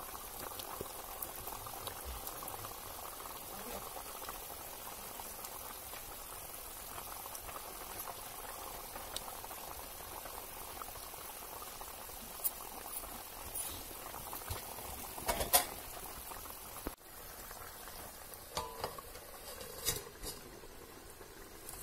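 Fish curry boiling hard in an aluminium kadai, a steady bubbling. A few sharp knocks break in, the loudest about two-thirds of the way through.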